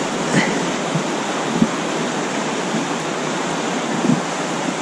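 Fast river current rushing steadily over rapids, close to the microphone, with a few short soft knocks.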